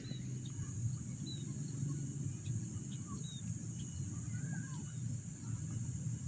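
Steady high-pitched insect drone, crickets singing in the field, with a few short bird chirps and a low rumble underneath.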